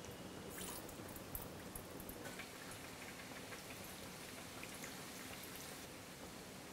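Chirote pastries deep-frying in oil on low heat: a quiet, steady sizzle with scattered crackles of bubbling oil.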